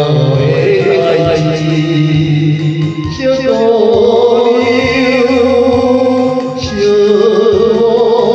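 Music of an old Taiwanese-language song, with singing; long held notes waver, one from about three seconds in and another near the end.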